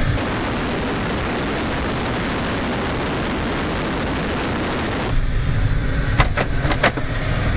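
Steady rush of wind over a camera mounted outside the tow plane during an aerotow. About five seconds in it gives way to the glider cockpit on tow: airflow and the low drone of the tow plane's engine ahead, with four sharp clicks near the end.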